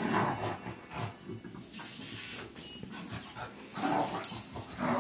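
A beagle and a terrier mix play fighting, vocalizing in short bursts, loudest around four seconds in and again near the end.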